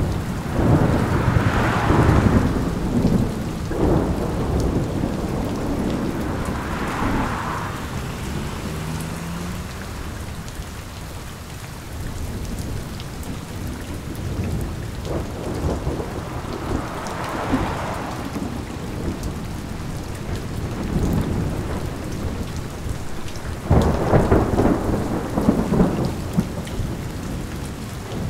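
Thunderstorm: steady rain with thunder rolling in several times, loudest near the start and again about three-quarters of the way through.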